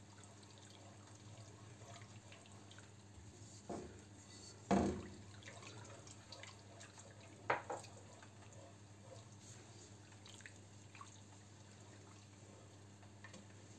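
A whisk stirring milk into a butter-and-flour roux in a pan, making faint wet stirring sounds as the white sauce is kept moving so no lumps form. A few sharper knocks come through, the loudest about five seconds in.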